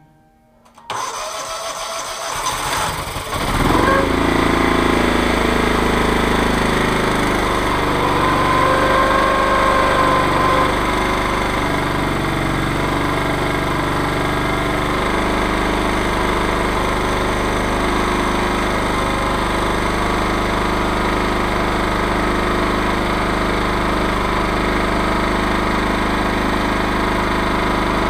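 Chainsaw mill's engine started about a second in, catching a couple of seconds later and then running steadily, a fair bit noisy.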